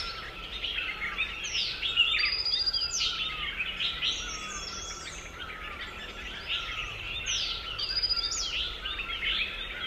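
Chorus of small songbirds: many overlapping quick chirps, falling whistles and short rapid trills.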